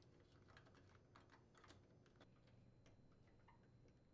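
Faint, irregular small clicks and ticks of a screwdriver working out the lid lock's mounting screws. The clicks come quickly at first and thin out after about two seconds.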